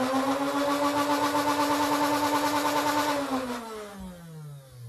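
Flywheel motors of a Nerf M41A Pulse Rifle blaster, run off a LiPo battery, humming steadily at full revs, then winding down in falling pitch over the last second or so as the rev trigger is let go.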